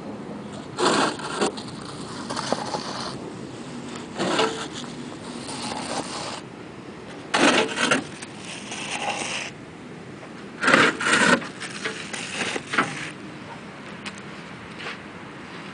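Adobe mud bricks being handled one by one, slid off a truck bed and set down on a stack: short, gritty scrapes and knocks of earth brick against brick, coming every few seconds.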